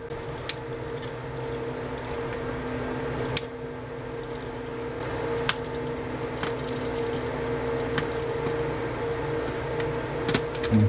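A steady electrical hum from bench equipment, with scattered sharp light clicks and taps of tools and small parts against the keyboard during soldering work, a few of them close together near the end.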